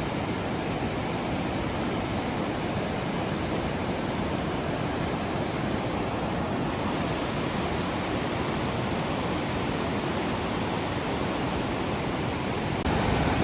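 Steady rushing of falling water from a waterfall. It gets louder near the end.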